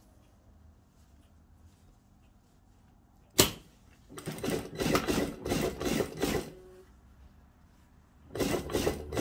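Sewing machine stitching through dress fabric in two short runs, the first about four seconds in and the second near the end, with a pause between them. A single sharp click comes just before the first run.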